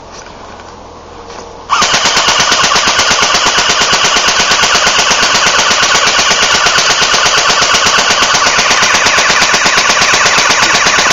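Air gun firing one long, unbroken full-auto burst of rapid, evenly spaced shots, starting about two seconds in, with BBs striking a gingerbread house.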